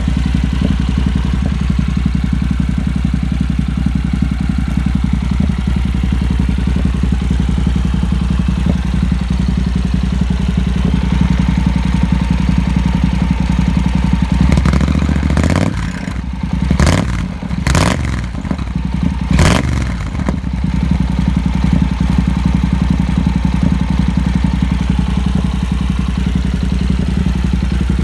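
Honda NC700X parallel-twin engine idling steadily through a de-catted stock pipe and a small Grom slip-on muffler, blipped in a quick series of revs about halfway through before it settles back to idle.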